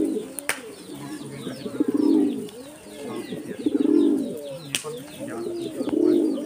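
A flock of domestic pigeons cooing, many overlapping coos that swell about every two seconds, with faint ticking throughout.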